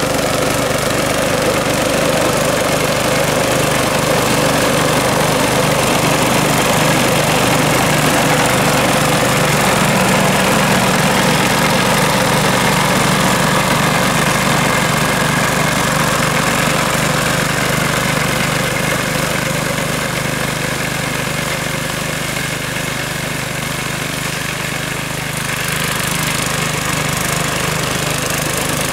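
Rotakt walk-behind petrol lawn mower running steadily while cutting through tall grass, with a brief dip in level past the middle and a rise in hiss near the end.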